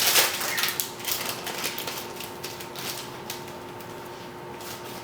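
Paper rustling and crinkling as a folded instruction sheet is opened and handled, busiest in the first second or two and then dying down.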